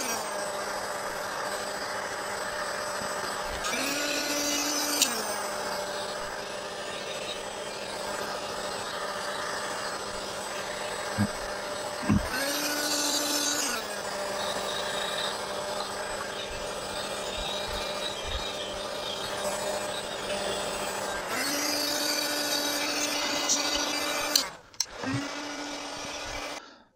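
Electric heat gun's fan blowing steadily, its hum shifting in pitch a few times, while a bristle brush scrubs melted beeswax onto the oak barrel head. The heat gun cuts off near the end.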